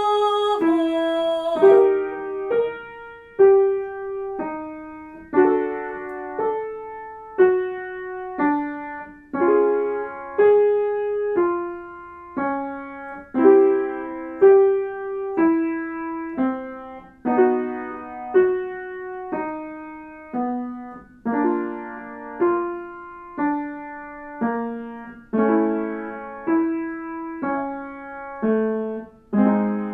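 Piano accompaniment for a vocal warmup exercise: chords struck about once a second, each dying away, with the pattern moving gradually lower in pitch.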